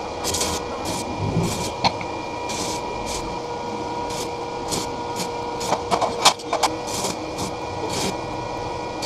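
MIG welder arc burning in one continuous bead for about nine seconds: a steady crackling sizzle with sharp spatter pops and a steady hum underneath. It starts abruptly as the arc strikes and cuts off abruptly near the end.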